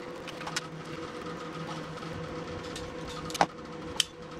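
Hand crimping tool closing on a connector pin, with two sharp clicks a little over three seconds in and about half a second apart, over a steady background hum.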